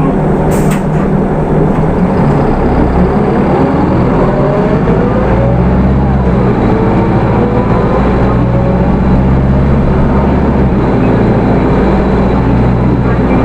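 Hino Rainbow II bus with a 4HK1 four-cylinder diesel and automatic transmission, driving and accelerating. The engine note steps as the gears change, and several rising whines sound during the pull. There is one sharp click about half a second in.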